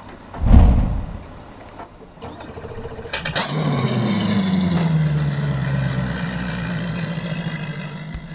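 A deep whoosh and boom about half a second in. Then, just after three seconds, a click of the ignition key and a boat engine starting, its pitch falling as it settles into a steady run.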